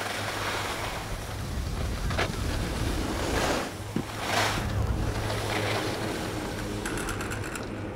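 Wind rushing over a moving skier's action-camera microphone, mixed with skis sliding over groomed snow. The rush swells twice around the middle, and a quick run of clicks comes near the end.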